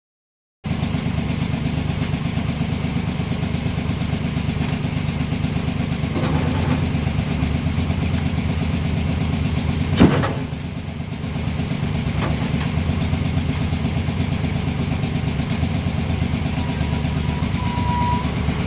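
An engine running steadily at an even speed, with one sharp knock about ten seconds in and a short high beeping tone near the end.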